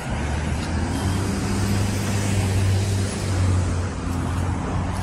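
A motor vehicle's engine running close by, a steady low hum that grows louder through the middle and eases off about four seconds in.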